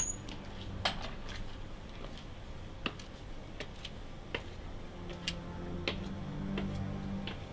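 Footsteps on a walkway: sharp, uneven clicks, about one or two a second, with a faint low hum in the second half.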